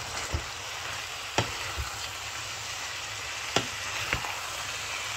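Beef mince and vegetable sauce sizzling in a frying pan as boiled fusilli pasta is stirred in with a spatula, with a few short knocks of the spatula against the pan.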